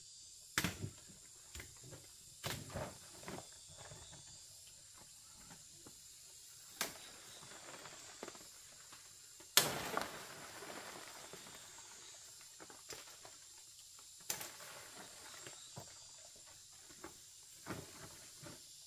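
Irregular sharp snaps and knocks, with one much louder crack about halfway through, over a faint steady high tone.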